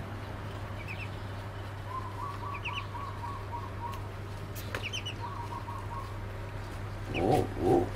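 Duckling peeping: short high chirps every second or two, with a faint rapid trill and a steady low hum underneath. A louder, voice-like sound comes in briefly near the end.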